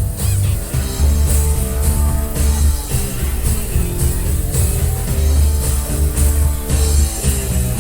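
Rock band playing: electric guitar and bass over a drum kit keeping a steady beat, with regular cymbal hits.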